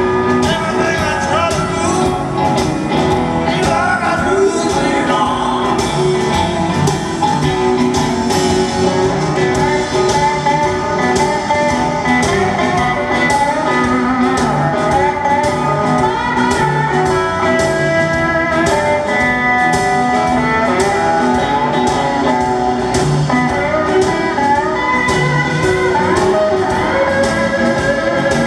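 Live blues band playing loudly through an arena sound system, a steel guitar taking a solo with gliding notes over the drums and band.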